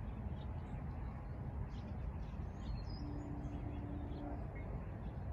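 Outdoor ambience: a steady low rumble with scattered faint bird chirps. A brief steady tone sounds about three seconds in.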